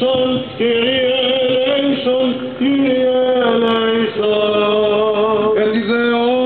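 Men chanting in Greek Orthodox Byzantine style, singing long held notes that glide from pitch to pitch.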